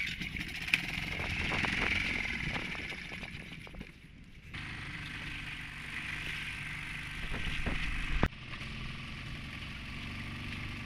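Small Suzuki four-stroke outboard motor running steadily, driving an inflatable dinghy, with one sharp click about eight seconds in.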